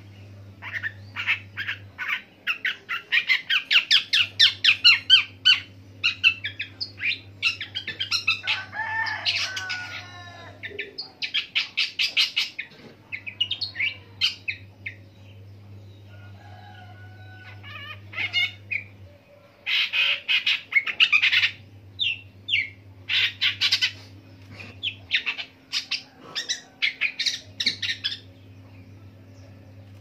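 Long-tailed shrike singing: bouts of a few seconds of fast, varied notes separated by short pauses, a long song that mimics the calls of other birds.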